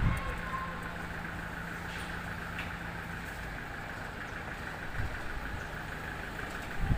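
An aluminium window frame with glass being slid and handled on a work table, with a few dull knocks: one at the start, one about five seconds in and one near the end. Under it, a steady mechanical hum, with a low tone that stops about halfway.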